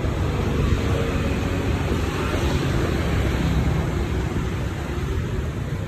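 Steady noise of passing street traffic, with faint engine hum.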